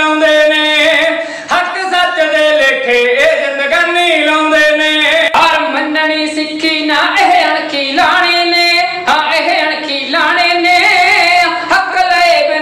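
Kavishri singers, male Punjabi folk-ballad singers, singing a verse in high voices with no clear instrumental beat.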